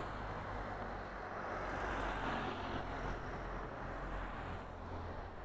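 Road traffic on a hill highway: a vehicle passing swells and fades between about one and four seconds in, over a steady low hum.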